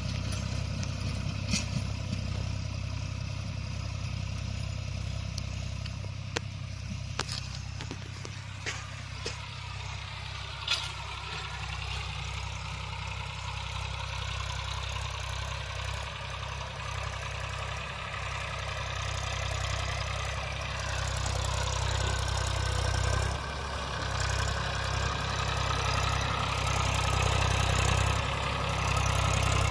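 Massey Ferguson tractor's diesel engine running steadily, with a few sharp knocks in the first third. The engine revs up and gets louder about two-thirds of the way through.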